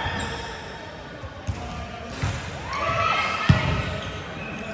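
Volleyball being hit during a rally in a large sports hall: sharp slaps of the ball on players' arms and hands, three of them, the loudest about three and a half seconds in, with players shouting to each other between the hits.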